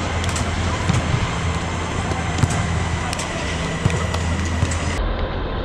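Steady low hum and rushing noise filling a large air-supported sports dome, the sound of its inflation and ventilation fans, with a few sharp knocks and indistinct voices over it.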